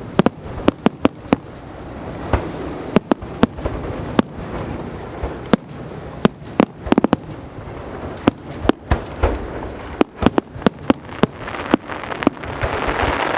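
Aerial fireworks show: shells bursting in many sharp bangs at irregular intervals, some in rapid clusters, over a continuous crackling rumble that swells near the end.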